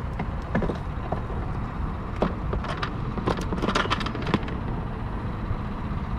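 Hands unhooking a freshly caught crappie, giving a scatter of light clicks and taps, busiest between about two and four and a half seconds in, over a steady low rumble.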